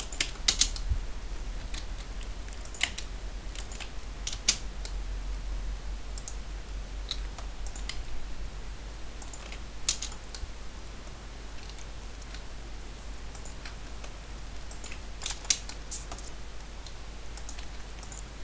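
Scattered clicks of a computer keyboard and mouse, a few at a time with pauses between, over a low steady hum.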